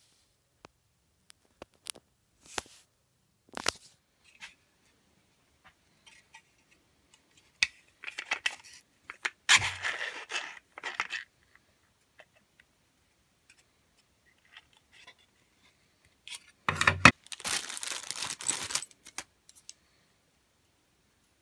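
Hands handling the band saw's loose accessory parts, a miter gauge and a tension knob: scattered clicks and knocks, with two longer spells of rustling handling noise, one about halfway in and one near the end.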